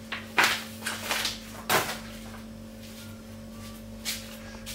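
A folded paper instruction manual and paper packaging being handled and folded: a few short, sharp rustles and crackles in the first two seconds and one more about four seconds in, over a steady low hum.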